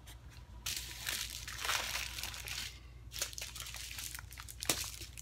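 Small plastic bags of diamond painting drills crinkling as they are handled in a large zip-lock bag, in bursts, with one sharp click near the end.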